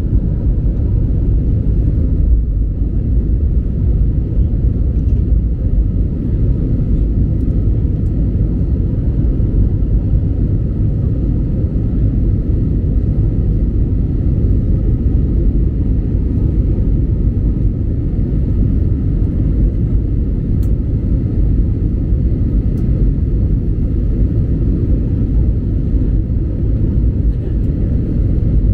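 Steady low rumble that goes on without a break, with a faint steady hum higher up, like the running noise of a moving vehicle.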